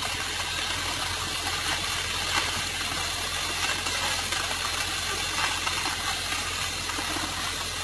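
A crane truck's engine runs steadily under an even hiss.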